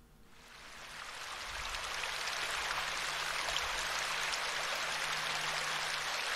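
Small stream running, water splashing over a little cascade into a pool. The sound fades in over the first two seconds, then runs steady.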